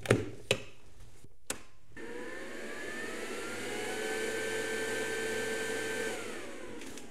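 A few clicks as the ESAB Rogue EM 180 MIG welder is powered up, then its internal cooling fan whirring up in a rising whine, running steadily for about four seconds and winding down near the end, typical of the fan's start-up run on switch-on.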